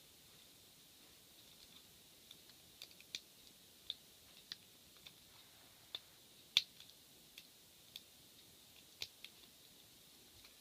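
Faint, irregular small clicks and ticks of a hook pick and tension wrench working the pins of a pin-tumbler rim cylinder lock, about a dozen spread unevenly, the sharpest about six and a half seconds in. The lock is one the picker suspects holds security pins, having felt a slight false set.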